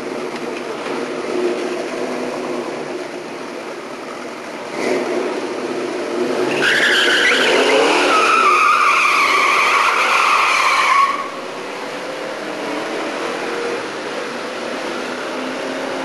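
A drag car's engine running, then tyres squealing loudly in a burnout for about four and a half seconds, the squeal's pitch wavering before it cuts off and the engine settles back to a steady run.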